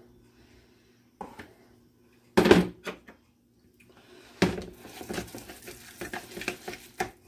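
A couple of kitchenware knocks on the counter, the loudest about two and a half seconds in, then a utensil stirring and scraping thick chicken salad in a plastic tub, with many small clicks, through the second half.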